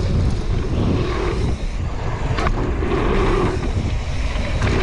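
Wind rumbling on the microphone of a camera carried on a fast mountain-bike descent, with two sharp knocks from the bike, one about two and a half seconds in and a fainter one near the end.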